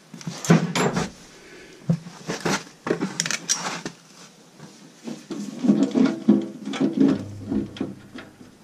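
Metal clinks, knocks and rattles of a hand and wrench working the bolts on a wood chipper's sheet-metal housing, with a denser stretch of rattling in the second half.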